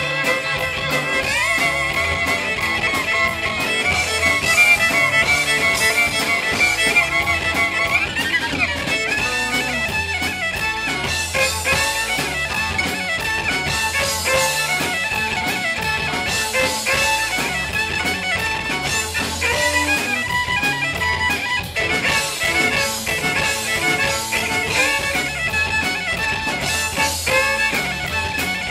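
Live country band playing an instrumental passage: fiddle and electric guitars over a steady beat, with sliding high notes near the start.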